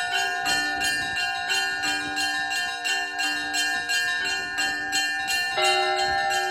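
Russian Orthodox church bells rung by hand in a quick, even peal, about two to three strokes a second. Small bells alternate over the long ring of the larger bells, and a heavier, deeper stroke comes in near the end.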